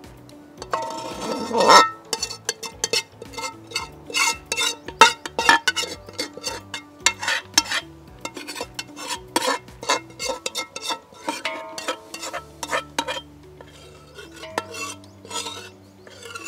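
A metal utensil scraping and clinking against a cooking pot in many quick strokes, typical of stirring or spooning food in the pot. Background music with a stepping bass line plays underneath.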